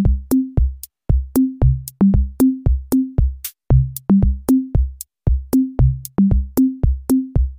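Background music: an electronic drum-machine beat with short bass notes stepping between a few pitches in a steady, quick rhythm.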